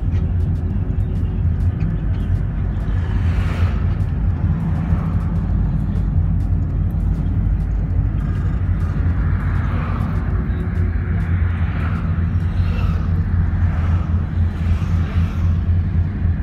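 Steady low rumble of a road vehicle's engine and tyres, heard from inside the cabin while driving.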